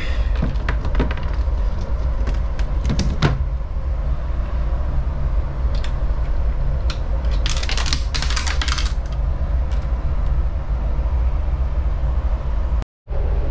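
Clicks and knocks of a lifeboat's inventory locker cover panel being handled and fitted back into place, with a cluster of clattering about eight seconds in, over a steady low rumble.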